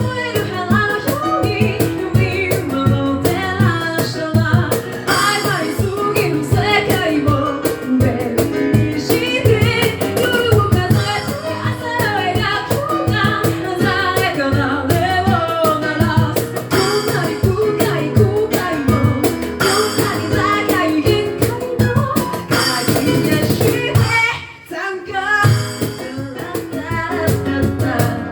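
A cappella group singing a pop song in several vocal parts, with vocal percussion keeping a steady beat. The sound drops out briefly about three-quarters of the way through, then the singing and beat come back.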